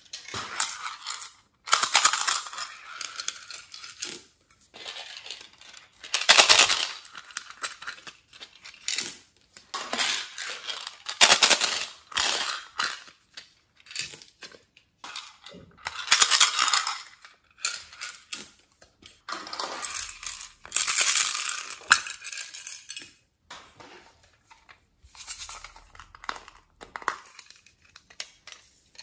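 Beads and glitter shaken out of small plastic toy containers into a glass dish of slime, in repeated rattling bursts, with sharp clicks of plastic cases being handled and opened.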